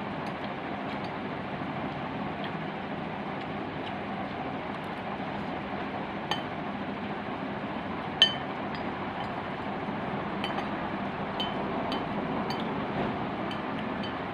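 Metal spoon and chopsticks clinking against a glass bowl of noodles while eating: a dozen or so light, ringing clinks, the loudest about eight seconds in, over a steady background hiss.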